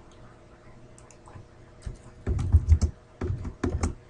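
Typing on a computer keyboard: a few quick runs of keystrokes in the second half, with a short pause between them.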